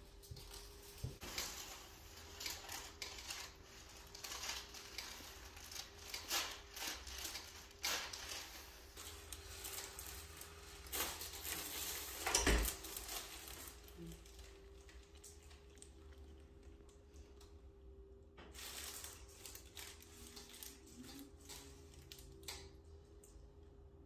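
Hands rubbing and shifting against skin, hair and clothing during neck work on a patient lying on a chiropractic table, with scattered small clicks and one sharp crack about halfway through.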